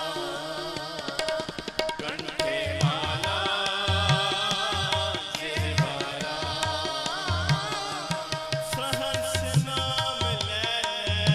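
Sikh kirtan music: held reed-organ tones over tabla, a fast tabla roll about a second in, then a steady beat with deep bass-drum strokes about twice a second, while a voice sings a wavering, ornamented melody.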